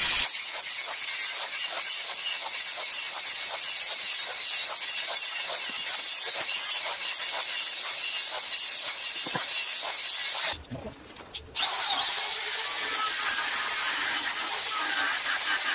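Angle grinder grinding a leaf-spring steel knife blank, a hissing grind with a regular rasp about three times a second. After a short dip about ten seconds in, a die grinder with a pink abrasive stone grinds the blade with a steady high whine.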